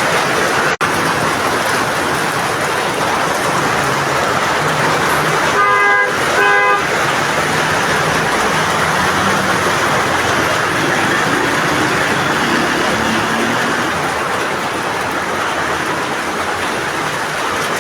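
Two short car horn toots in quick succession about six seconds in, over a steady, loud wash of noise.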